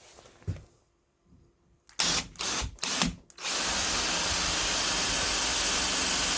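Power drill with a 5/32 bit drilling into the phone holder: a few short spurts of the trigger, then running steadily from about halfway through.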